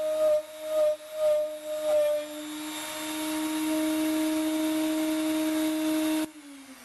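A 400-watt HILDA rotary tool at its lowest speed drilling into a brass flywheel hub, its motor note swelling and dipping several times in the first two seconds as the bit cuts, then running steadily. Near the end it is switched off and its pitch starts to fall as it winds down.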